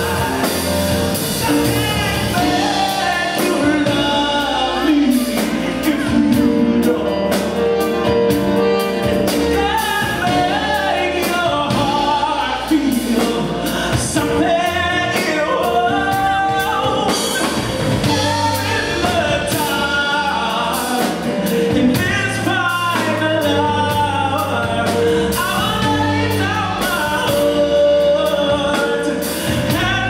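Small jazz band playing a slow ballad live: a saxophone carries the melody over keyboard chords, electric bass, drum kit and congas.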